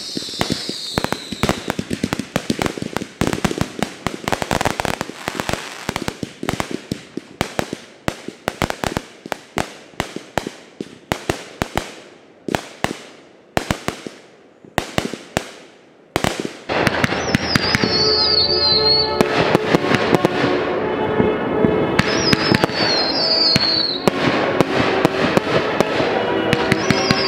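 A fireworks display: rapid sharp bangs and reports from aerial shells and multi-shot cakes going off in quick succession, thinning out a little before the end of the barrage. About two-thirds of the way through, music comes in at a steady level while the fireworks keep banging under it.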